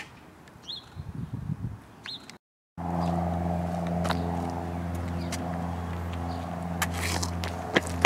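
Birds chirping faintly outdoors, then, after a cut, a car engine idling steadily with a low even hum, with a few sharp clicks near the end.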